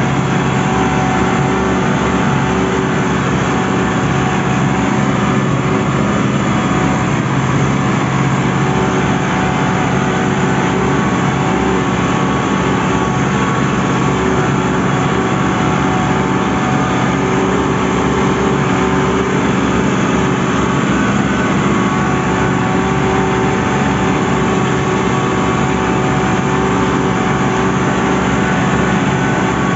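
New Holland 7630 tractor's diesel engine running steadily under load, pulling a Baldan disc harrow, heard from the driver's seat.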